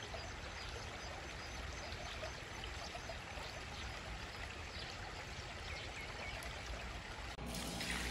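Steady rush of water flowing along a concrete irrigation channel beside the fields. About seven seconds in it gives way to a louder splashing pour, as water is tipped from a clay bowl onto glutinous rice in a metal basin.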